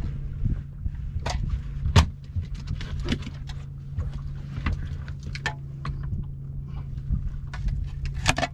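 Fishing boat on the water: a steady low hum with scattered sharp clicks and knocks, the loudest about two seconds in.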